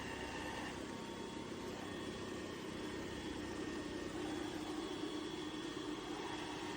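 Steady motor hum of a MOVA P10 Pro Ultra robot vacuum and mop system running, with faint steady high whines; it swells slightly about four seconds in.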